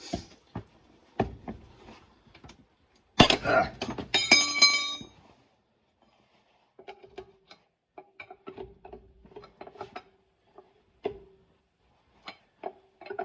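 Steel tire iron working on a car's lug nuts: light clicks, then a loud metal clank about three seconds in that rings for a second or so. After it comes a series of small ticks and creaks as the wrench is worked against the nut.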